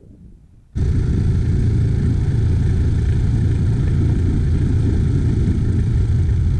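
Tohatsu outboard motor running steadily with the dinghy under way, heard close up from a camera mounted just behind it; the sound cuts in abruptly under a second in.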